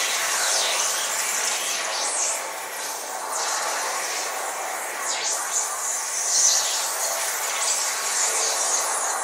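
A group of smartphones running GRAME's SmartFaust synthesizer apps, played together by a class as an ensemble. They make a dense, hissing wash of noise that swells and sweeps up and down in pitch.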